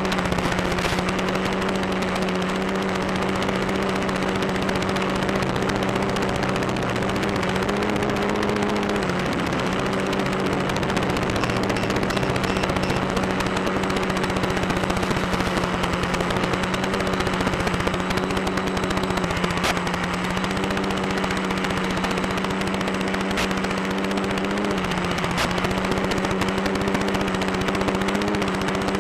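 Electric motor and propeller of an FPV drone in flight, heard through its onboard microphone: a steady droning hum over rushing wind noise. Its pitch shifts briefly about eight seconds in and again about three quarters of the way through.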